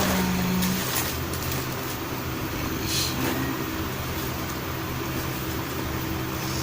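Steady low mechanical hum, as from a fan or motor, with a few brief handling noises over it, the clearest about three seconds in.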